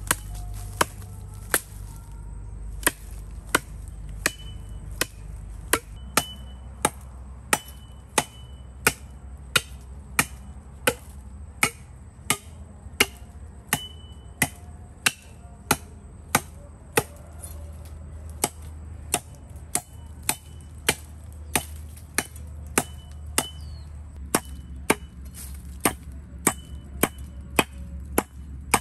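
Firewood being chopped with a blade: a steady series of sharp strikes, a little more than one a second, some leaving a brief high ring, over a low steady rumble.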